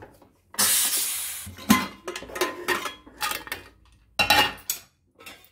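A pressure cooker releasing steam, a loud hiss lasting about a second, followed by a series of metal clanks and clinks as the cooker's lid and pot are handled.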